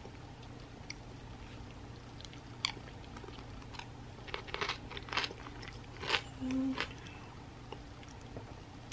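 Eating granola-topped yogurt and banana: quiet chewing with scattered sharp crunches, and a metal spoon clicking against a cut-glass dessert bowl. The sounds are sparse, with most of them between about four and seven seconds in.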